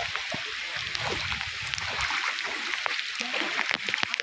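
Steady hiss of heavy rain and a running stream, with scattered small clicks and taps throughout.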